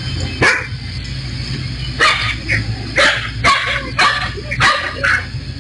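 A dog barking repeatedly: about eight short, sharp barks, one near the start and then a quick run of them roughly every half second from about two seconds in.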